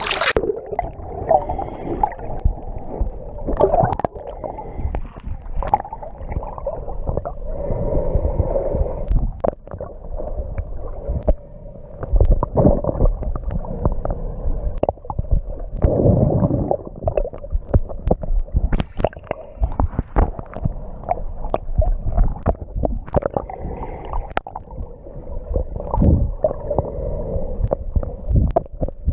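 Water heard from a camera held underwater while snorkelling: a muffled, uneven rumbling and gurgling of water moving around the camera as the swimmer strokes along, with scattered small clicks and knocks.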